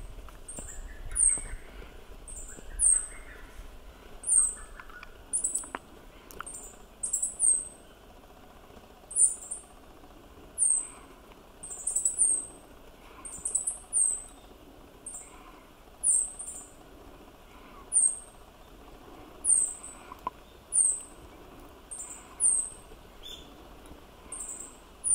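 Meadow bunting giving short, very high call notes, about one a second, each falling slightly in pitch and some given in quick pairs.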